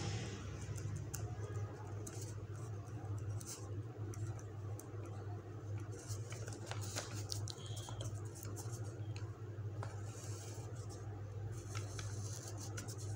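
Ballpoint pen scratching and ticking on lined notebook paper as words are written and lines drawn, over a steady low hum.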